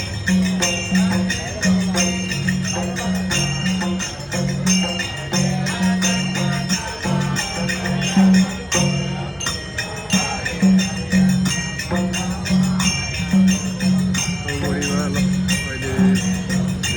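Devotional bhajan kirtan music: small hand cymbals clashing in a steady, quick rhythm with a bright ringing jingle, over held low notes and drumming.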